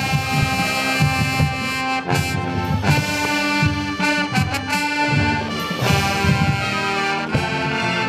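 High school marching band playing live, its brass section, sousaphones included, sounding sustained chords broken by several sharp percussion hits.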